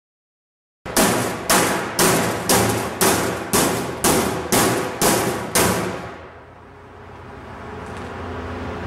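A hammer striking the Kevlar/Duraflex hull of a Clipper 16-foot Prospector canoe in a hammer test. About ten hard blows come at roughly two a second, then stop.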